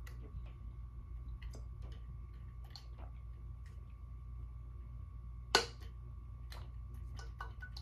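Faint scattered clicks and ticks of small objects being handled, with one sharp click about five and a half seconds in, over a steady low hum and a faint steady tone.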